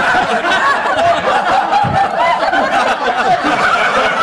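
Audience, many of them children, laughing and shouting together, with clapping, after a joke and a call for applause.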